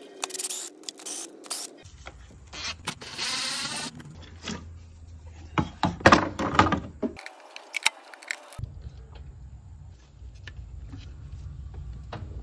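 Hand tools and metal engine parts clicking, knocking and scraping as the top of the engine is taken apart by hand, in several short cuts, with a cluster of loud knocks about six seconds in.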